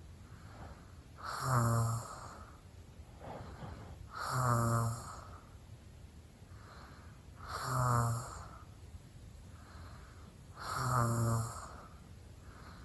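Snoring in a slow, regular rhythm: four loud, rasping snores about three seconds apart, each followed by a quieter breath out.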